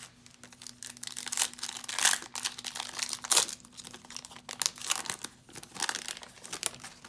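Foil wrapper of a 2019 Donruss Optic baseball card pack being torn open and crinkled by hand: a run of sharp crackling rips, loudest in the first few seconds.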